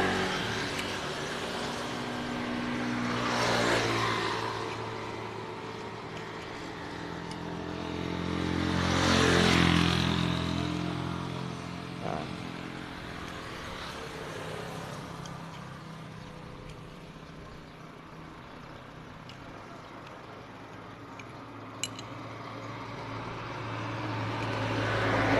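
Motor vehicles passing one after another, each swelling and fading over a few seconds, over a steady low engine hum. A single sharp click sounds near the end.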